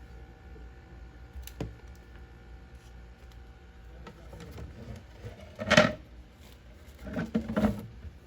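Small household handling sounds in a small room: a light click, then a short loud rustle or scrape and a brief run of clattering near the end, over a faint steady hum.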